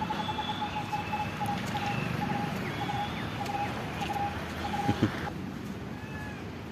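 Birds calling outdoors: one repeats a short low note about three times a second while others give higher chirps over a steady background hiss. There is a brief thump about five seconds in.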